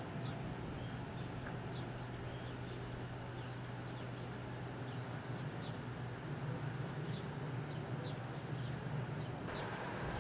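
Street ambience: a steady low hum of an idling vehicle engine, with birds chirping about once a second.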